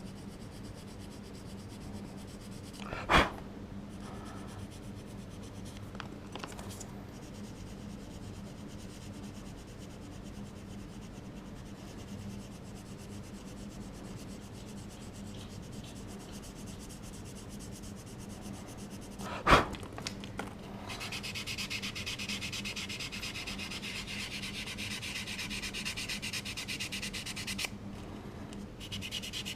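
Hand sanding of cured putty on a small resin model part, a soft rasping rub that grows louder for several seconds near the end. Two sharp knocks break in, a few seconds in and about two-thirds of the way through.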